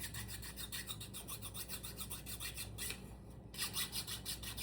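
Quick back-and-forth strokes of hand-sanding an old ivory fitting from a biwa so it fits its hole, about six strokes a second, with a short pause about three seconds in.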